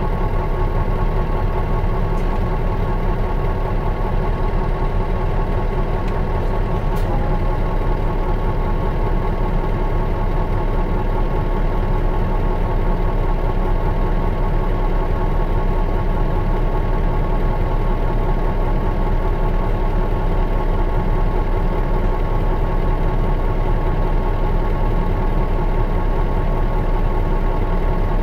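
Diesel engine of a 2002 Mitsubishi Fuso Aero Bus KL-MS86MP idling steadily at an unchanging pitch, heard from inside the cabin, with a single sharp click about seven seconds in.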